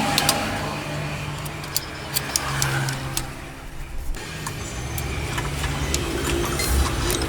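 An engine running steadily, its hum dipping briefly near the middle, with scattered sharp metallic clicks.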